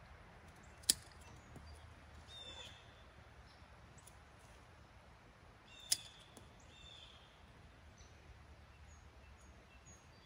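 Hand pruning shears snip through two small peach-tree branches, two sharp snaps about five seconds apart. Birds chirp faintly between the cuts.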